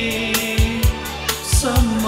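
Live band music from a Nepali pop song: a steady drum beat under held sung or keyboard notes, one of them bending in pitch near the end.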